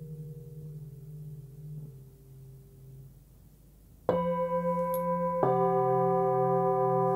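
Forged Nepalese singing bowls: the hum of one bowl fades with a slow wavering beat, then about four seconds in another bowl is struck with a felt mallet and rings out, and a further bowl is struck a second or so later, the two ringing on together.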